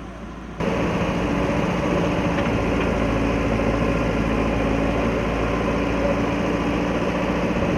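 An engine running steadily, loud and even, starting abruptly about half a second in.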